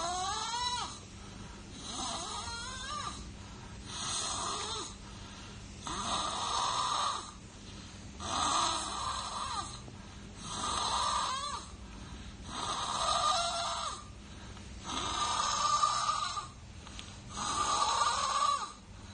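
A baby snoring steadily, about nine snoring breaths, one every two seconds or so.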